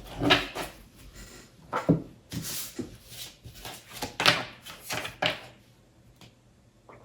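Tarot cards being shuffled and handled: a run of short papery swishes and slaps, dying away near the end.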